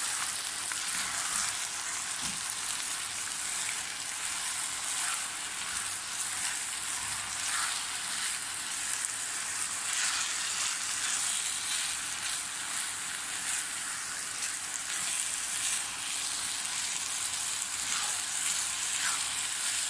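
Boiled rice cooking in hot sugar syrup in a non-stick pan, a steady sizzling hiss, with soft strokes of a silicone spatula now and then as the rice is folded through.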